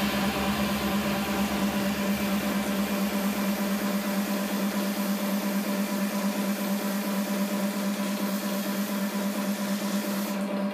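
Tattoo machine buzzing steadily as its needle works ink into the skin.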